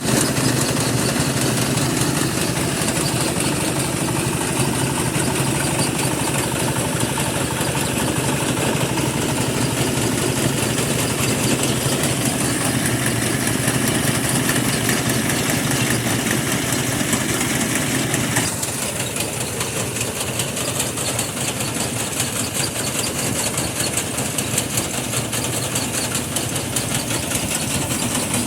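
Engine-driven rice threshing machine running steadily. About eighteen seconds in, the sound drops a little in level and its low hum thins.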